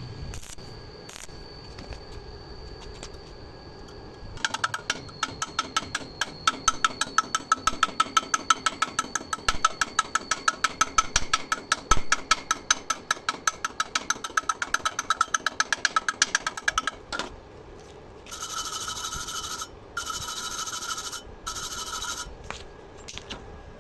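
Metal being worked in rapid, regular rasping strokes, about five a second, for some twelve seconds over a steady high tone. Then come three short, steady passes of a harsher grinding sound.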